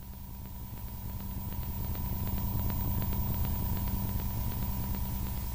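Low rumbling drone with a thin steady tone above it and faint crackling, swelling slowly louder: horror-animation sound design building tension.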